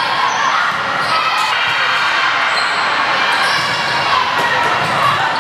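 An indoor volleyball rally in a large gym: the ball being struck, with players' voices and movement on the court echoing around the hall.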